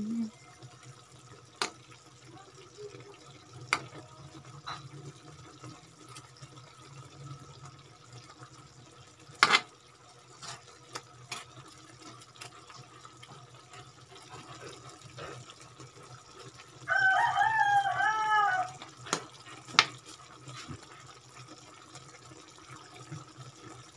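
Metal ladle clinking and scraping against a metal wok of simmering chicken adobo, a few sharp taps scattered through, over a steady low hum. About seventeen seconds in, a rooster crows once, the loudest sound.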